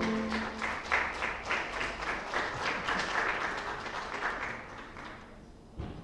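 Audience applauding, the clapping dying away toward the end, while the last held note of the music fades in the first moment. A short low thump just before the end.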